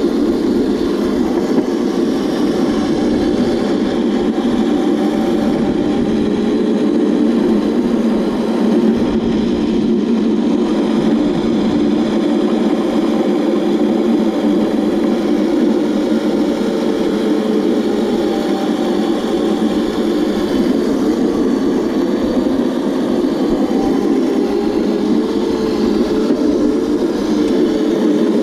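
Razor Crazy Cart electric drift kart running over asphalt: a steady rolling rumble with a faint electric-motor whine that rises and falls in pitch as the speed changes.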